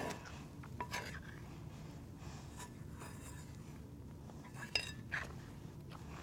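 A spoon stirring thick fudge mixture in a dish, with scattered clinks and scrapes against the dish, the loudest a little before five seconds in.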